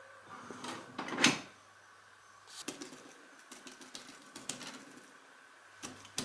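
A sheet of printer paper rustling, loudest about a second in, then a paper tissue wiping spilled milk off the copier's scanner glass: rubbing strokes with short irregular clicks and scrapes.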